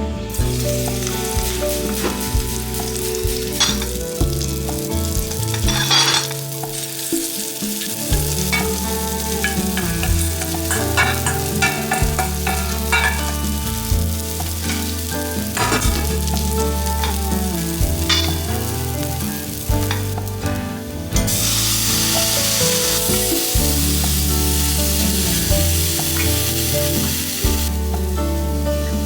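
Dried anchovies stir-frying in a pan: a steady sizzle broken by short spatula scrapes and taps against the pan. The sizzle turns louder and hissier about 21 seconds in and drops back near the end.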